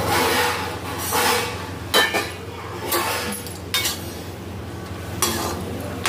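Potato pieces tipped into a metal kadhai of hot oil, then a slotted metal spatula stirring and scraping them, knocking against the pan with sharp clinks about once a second.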